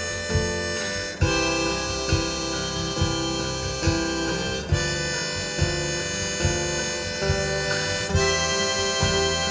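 Live acoustic band playing an instrumental passage: held melody notes over a steady beat of a little more than one a second.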